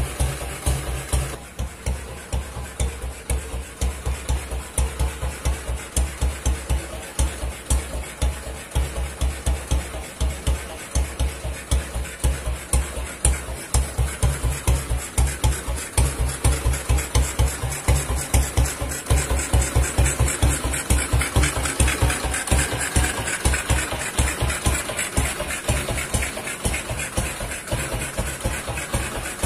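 Classic BSA single-cylinder motorcycle engine idling, its exhaust giving an even, steady train of low beats.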